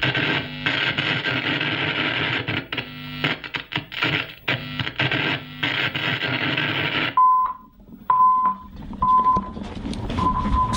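Television broadcast breaking up: loud, harsh static cutting in and out for about seven seconds, then stopping abruptly. It is followed by a few short, high, steady beeps.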